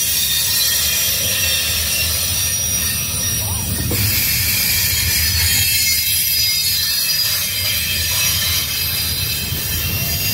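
Double-stack intermodal well cars rolling past on the rails: a steady low rumble of steel wheels on track, with a continuous high-pitched wheel squeal over it.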